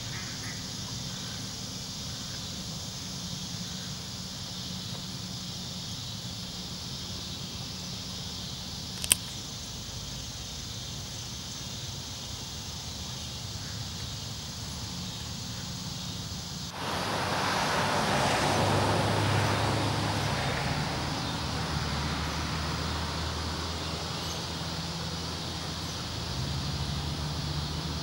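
Outdoor lakeside ambience: a steady high-pitched insect chorus, with one sharp click about nine seconds in. Just before seventeen seconds a louder rushing noise starts abruptly and then slowly eases off.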